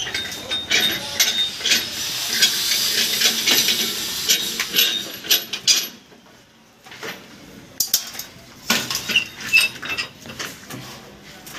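Irregular metallic clinks and clanks of core-drilling equipment being fitted and handled, over a high hiss. The sound drops off sharply about six seconds in, followed by quieter scattered clanks and a few sharper knocks.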